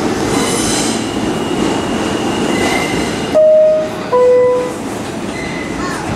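R-46 subway car running through a tunnel with a steady rumble of wheels on track. Two short, loud horn blasts come a little past halfway, the second with two pitches at once.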